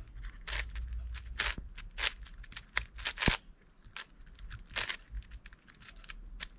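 An 8x8 Rubik's cube's plastic layers being turned by hand while its middle-layer edges are solved: an irregular run of quick clicking scrapes, the sharpest about three seconds in.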